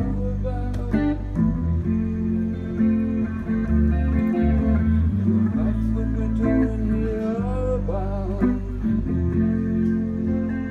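Live band music: guitars over a strong, steady bass line, with a few bending notes about seven to eight seconds in.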